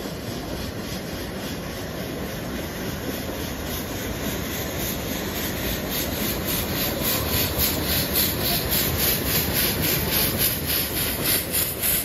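Narrow-gauge steam locomotive working a passenger train, its exhaust chuffing in a quick even beat of about three to four chuffs a second over the rumble of the train, growing louder as it draws near.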